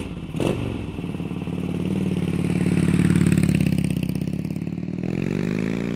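Motorcycle engine catching with a sharp onset about half a second in, then running and revving, swelling to its loudest around the middle and climbing in pitch near the end.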